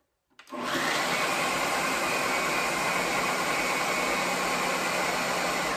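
Ninja food processor running steadily on its metal chopping blade, starting about half a second in and stopping at the end. It is mixing pecans and chocolate chips into a cookie-dough mixture, and the metal blade is chopping some of the pecans.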